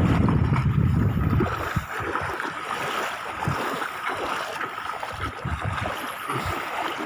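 Wind buffeting the microphone for about the first second and a half, then shallow sea water splashing and sloshing as a child wades through it, with an irregular splash at each stride.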